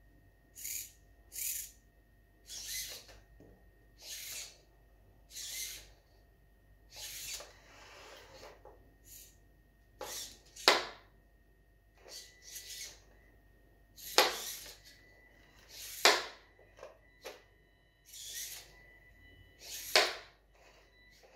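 A small hobby robot's arm motor whirs in short bursts, over and over, as it works a kitchen knife up and down. The blade strikes the plastic cutting board with sharp knocks, four of them loud, plus a few lighter taps.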